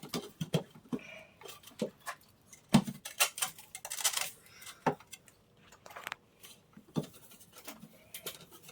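Irregular light clicks and knocks, one or two at a time, scattered throughout, with a sharper knock a little under three seconds in.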